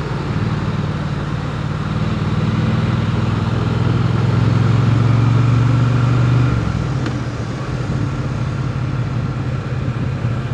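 Triumph Bonneville T100's parallel-twin engine running steadily while the motorcycle is ridden along a city street. It builds a little louder over the first few seconds, then drops back quieter about six and a half seconds in.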